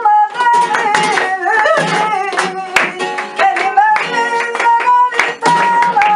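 Flamenco guitar playing, with sharp palmas hand-clapping keeping the rhythm and a woman singing a wavering melody over it.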